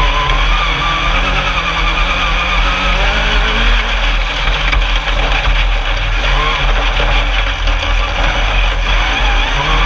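Alumicraft single-seat Class 10 off-road race buggy's engine running at speed, heard on board. Its pitch rises and falls with the throttle over a steady, dense wash of noise.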